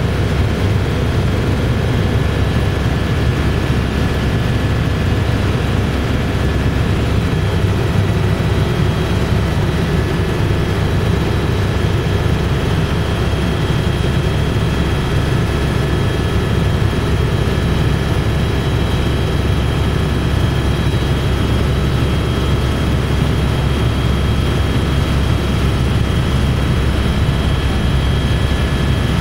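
Steady in-cabin noise of a Eurocopter AS350B3 Ecureuil helicopter in flight, powered by a single Turbomeca Arriel turboshaft: a dense low rumble with several thin, steady high whines above it.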